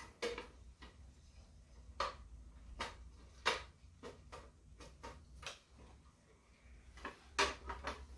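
Irregular sharp clicks and knocks of a black hard-plastic part being turned over and handled in the hands. The part is broken, with pieces loose inside it.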